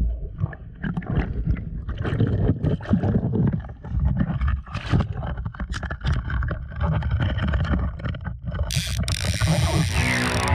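Water splashing and sloshing with wind buffeting the action camera's microphone, and scattered knocks of handling. About nine seconds in, a swooshing sound effect cuts in, followed by music.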